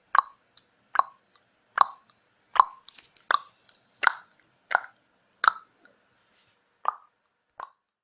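Tongue clicks made against the roof of the mouth: ten sharp clicks, about one every three-quarters of a second, with a longer pause before the last two.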